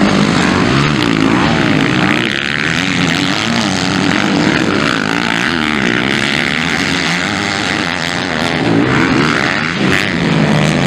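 Several MX1-class motocross bikes racing, their engines revving up and down so the pitch keeps rising and falling with each throttle change.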